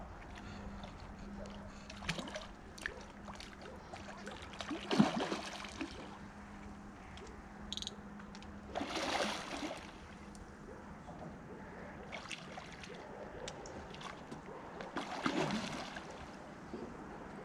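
A large hooked leather carp splashing and thrashing at the water's surface while it is played in close to the bank: three bursts of splashing, each about a second long, with scattered small clicks in between.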